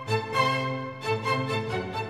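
Background music: a melody of short pitched notes changing every quarter to half second, with a string sound like a violin.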